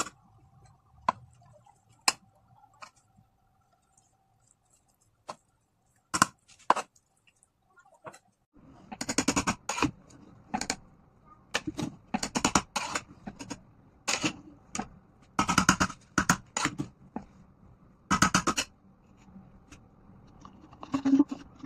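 Kitchen utensil sounds: a few scattered clicks and knocks, then a run of short, repeated scraping strokes of a utensil against a pot or dish.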